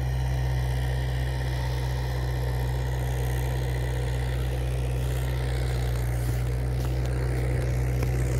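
Diesel engine running steadily at a low, even pitch, with no change in speed.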